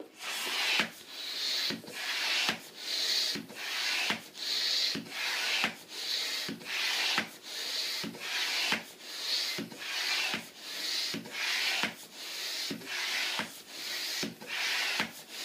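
Hand balloon pump being worked in steady strokes, a rush of air about every 0.8 seconds, with a short click at the start of each stroke, as it inflates a balloon.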